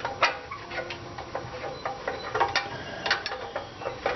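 Irregular metallic clicks and clinks of a wrench working a bolt, a few a second, some with a short metal ring.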